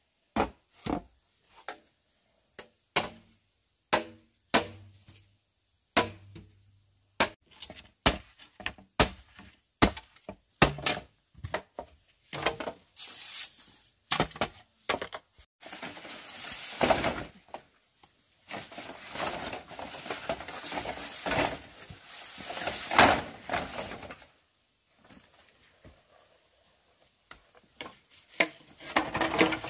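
Sharp wooden chops and knocks at irregular intervals, roughly one every half second to a second. In the middle comes several seconds of dense rustling and cracking, then more chops near the end.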